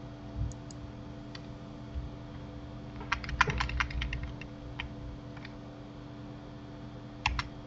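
Computer keyboard and mouse clicks: a few single clicks, a quick run of key presses about three seconds in, and a pair of clicks near the end, over a faint steady hum.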